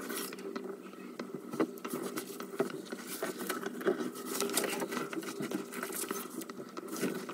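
Slices of pressed gym chalk being crushed and crumbled, a dense, irregular run of small crunches and crackles.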